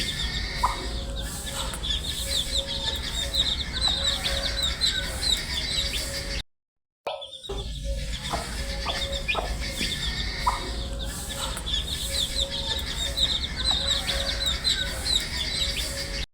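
A brood of domestic baby chicks peeping continuously, many short high chirps overlapping. The sound cuts out for about half a second some six seconds in, then resumes.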